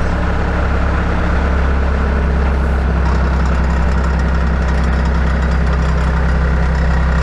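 Bobcat skid steer loader's diesel engine idling steadily at low throttle.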